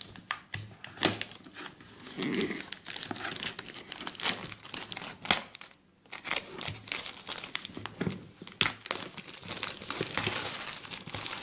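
Packaging on a Magic: The Gathering fat pack box being torn open and crumpled by hand: a run of crackling with sharp snaps, pausing briefly about halfway through.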